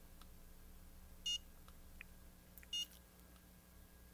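Two short, high electronic beeps about a second and a half apart from an ISDT BattGO BG-8S battery checker, sounding as its buttons are pressed.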